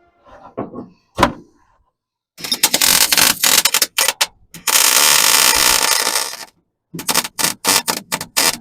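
MIG welder laying welds on a sheet-steel floor panel, with a crackling, spattering arc. It starts with a choppy run, goes on into a steadier bead lasting about two seconds, and ends with a quick series of short tack welds.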